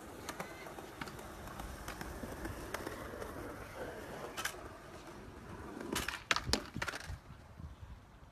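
Stunt scooter wheels rolling and rumbling on concrete, then several sharp clacks of the scooter striking the ground about six to seven seconds in.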